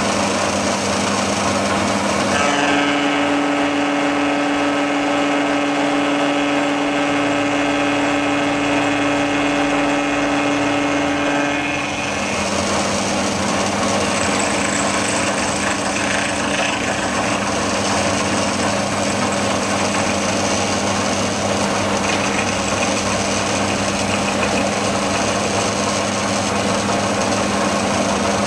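Mill-drill running, its cutter machining the side of an aluminium workpiece: a loud, steady machine whine made of several held tones. The tones change for a stretch about a quarter of the way through, then return to the earlier sound.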